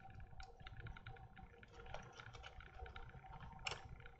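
Faint, scattered light clicks and taps of hands working on a small model aircraft, with one sharper click about three and a half seconds in.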